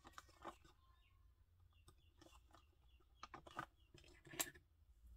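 Faint crinkling of a thin plastic transparency sheet being handled, with a few small clicks from plastic sewing clips. The sound is scattered and irregular, with the loudest crackles about three and a half and four and a half seconds in.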